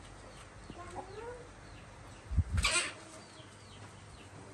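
Short animal calls: faint falling chirps repeating throughout and a rising call about a second in. The loudest sound is a thump followed by a brief rustling burst about two and a half seconds in.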